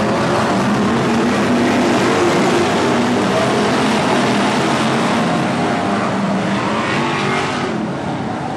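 A pack of BriSCA F1 stock cars' V8 engines running hard together, engine notes rising and falling as the cars power round the oval. The level eases off slightly near the end.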